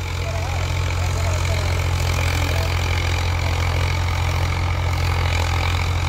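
Diesel tractor engine idling steadily, low-pitched and even.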